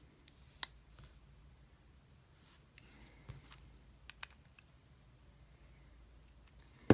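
Spyderco Polestar folding knife handled while its pivot screw is tightened with a small driver, to take out blade play: a few scattered light clicks, with one sharp, louder click at the very end.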